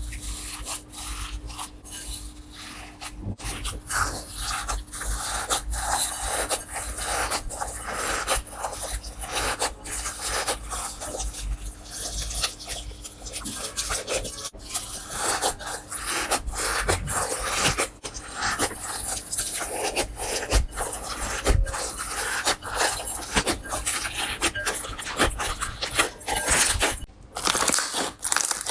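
Slime being squeezed, poked and stretched by hand: a dense, continuous run of sticky crackles, clicks and small pops.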